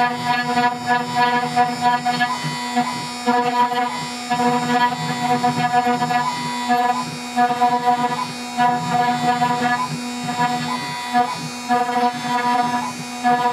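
CNC router spindle running steadily while a 30° V-shaped engraving bit cuts lettering into end-grain hardwood. A constant low hum carries through, and a higher whine comes and goes in short spells as the bit moves through its cuts.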